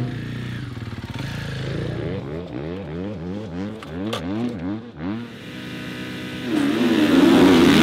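Motocross bike engines revving at a starting gate: a series of quick throttle blips, each rising and falling in pitch, then revs held steady, then much louder near the end as the bikes launch for a practice start.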